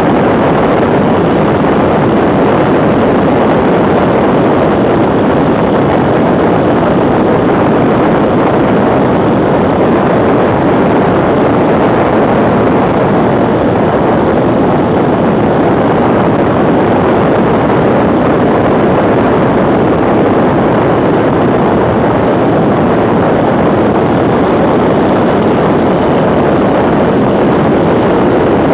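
BMW R1150R motorcycle cruising at a steady speed: the boxer-twin engine running under a constant rush of wind on the handlebar-mounted camera, with no change in speed or revs.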